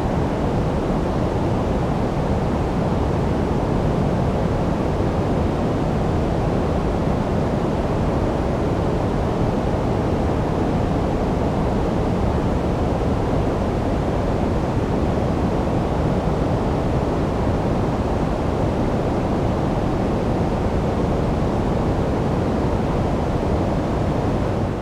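Steady synthetic sleep noise, even and unchanging, with most of its energy in the low end so it sounds deep and rushing rather than hissy.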